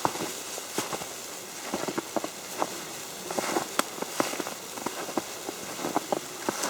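Falling snow ticking and pattering irregularly on an umbrella, with crunching footsteps in snow.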